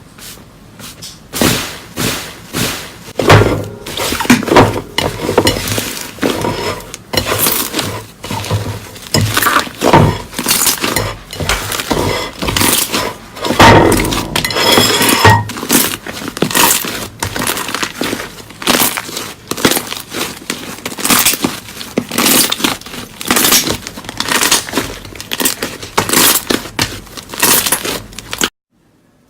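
Slime being squeezed and pressed by hand, giving a dense run of irregular crackles and pops that stops suddenly near the end.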